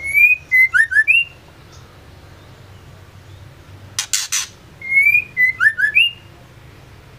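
Female white-rumped shama calling: a short phrase of clear whistled notes that rise and fall, topped by thin high chirps. About four seconds in come three harsh rasping notes, then the same whistled phrase again.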